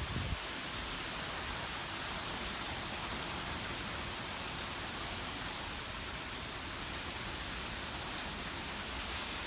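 Steady hiss of wind-driven thunderstorm rain.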